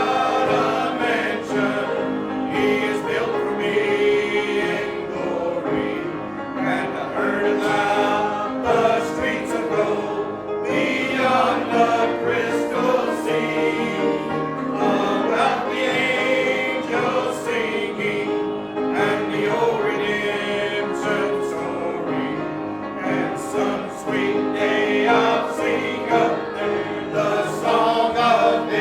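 Church congregation singing a hymn together, many voices in unison, continuous throughout.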